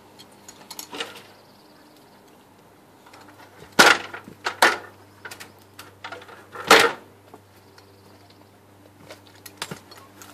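A stepladder being carried and set up: light clicks and rattles, with three loud knocks at about four, four and a half and seven seconds in as it is knocked about and set down.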